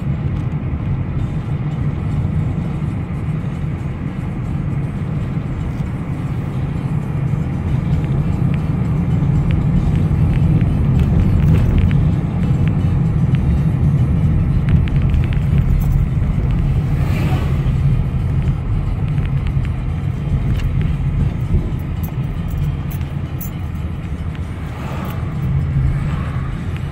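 Car driving at moderate speed, heard from inside the cabin: a steady low rumble of tyres on the road and the engine, swelling a little in the middle.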